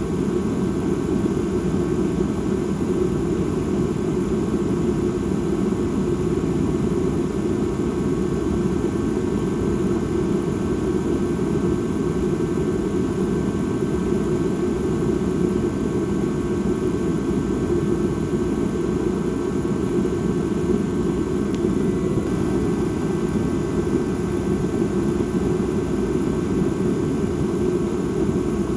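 Dark ambient drone: a steady, low, rumbling sustained sound with faint high tones and hiss above it, unchanging.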